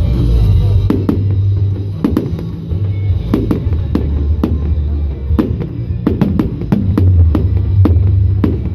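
Fireworks bursting overhead in an irregular run of sharp bangs, a dozen or more, over loud music with a heavy, steady bass.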